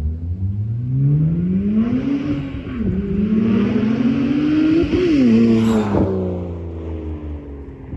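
BMW 335i's N54 twin-turbo inline-six through a 4-inch straight-pipe exhaust with no resonators, revving up for about two seconds and dipping briefly. It climbs again to a peak about five seconds in, then falls back and settles at a lower, steady pitch.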